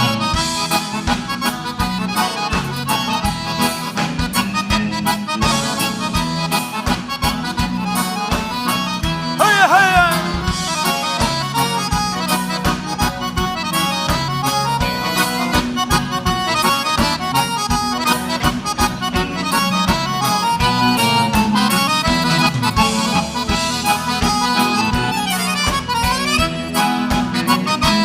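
Live gaúcho dance music: an instrumental passage led by accordion over a steady bass and a regular dance beat, with no singing.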